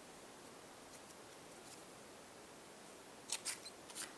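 Faint room hiss, then near the end a quick run of crisp clicks and snips: small scissors cutting a paper strip.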